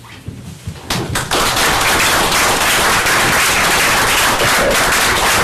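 Audience applause: a few first claps about a second in, swelling quickly into steady, full applause from the room.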